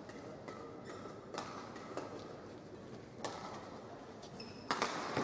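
Short squeaks of court shoes on the badminton court mat and scattered sharp knocks that echo round a large hall, the loudest knocks coming close together near the end.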